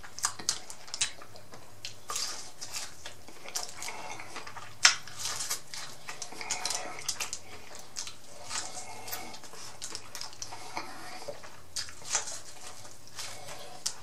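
Close-miked eating sounds: biting kernels off a piece of fried Cajun corn on the cob and chewing, with wet mouth and lip smacks and crisp little clicks, one sharper click about five seconds in.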